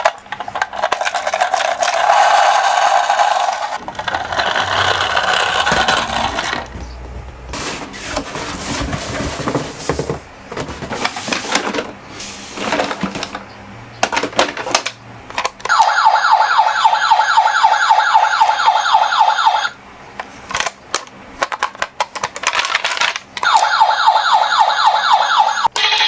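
Toy minicar ambulance's electronic siren sounding in stretches: a warbling, fast-repeating tone in the first few seconds, again about two-thirds through and near the end. Between them, rattling and rumbling of the toy cars rolling down a slope.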